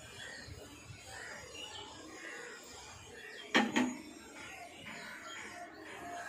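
A single sharp knock about three and a half seconds in, with a brief ring after it, over faint background sound.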